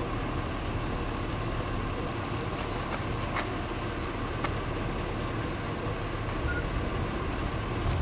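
Wind buffeting the camera microphone: a steady low rumble, with a few faint clicks about three to four and a half seconds in.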